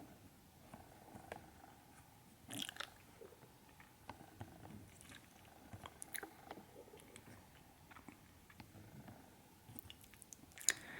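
Quiet close-up ASMR sounds: scattered soft clicks and crackles, with a louder crackle about two and a half seconds in and a sharp click near the end.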